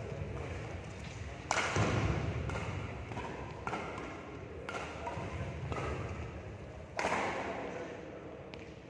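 Badminton rally: rackets striking the shuttlecock about once a second, each hit a sharp crack that echoes in the large hall, the loudest about a second and a half in and again near seven seconds. Players' footfalls thud on the court underneath.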